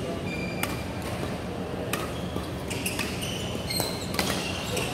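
Badminton rally: racket strings striking the shuttlecock about once a second, each hit a sharp crack, with short squeaks of court shoes on the floor between hits.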